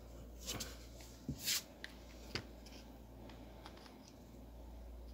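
Handling noise from a stone and a small flashlight held in the hands: a few short rubs and clicks, the loudest about a second and a half in, over a low steady hum.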